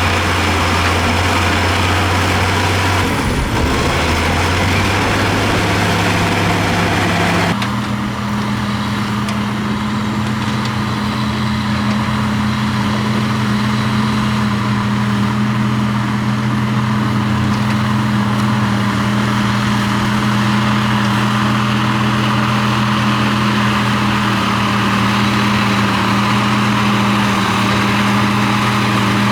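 Heavy earthmoving machine's diesel engine running steadily. About seven seconds in, the engine note changes abruptly to a slightly higher steady pitch and holds there.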